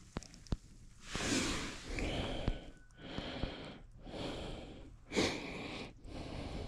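A person breathing in and out, about one breath a second, with two faint clicks just at the start.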